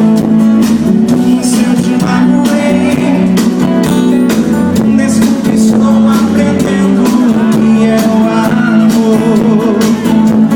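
Live sertanejo band music with guitars and a steady drum beat, with singing over it.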